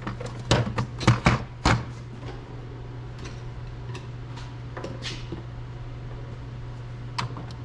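A plastic gauge cluster housing clacking against a workbench as it is handled, about five sharp knocks in the first two seconds, then faint rattling from a tool drawer as a screwdriver is fetched, over a steady low hum.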